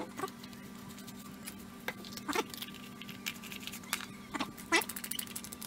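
Handling clicks and knocks of a caulking gun being loaded with a plastic tube, with a black cap screwed onto the tube, ending in a quick run of small clicks. A faint steady hum runs underneath.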